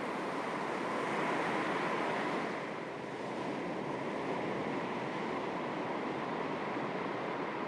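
Calm sea with small waves lapping on the shore: a steady wash that swells slightly about a second in and eases off around three seconds.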